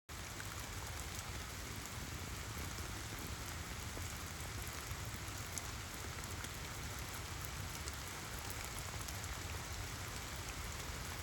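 Steady rain falling, with a few faint sharper drop ticks scattered through it.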